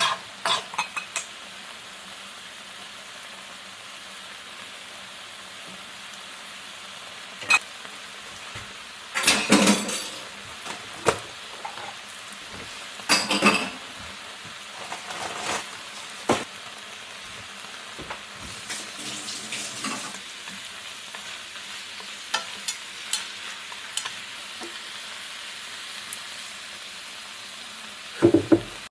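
Utensils clinking and scraping against dishes every few seconds, over a steady sizzling hiss.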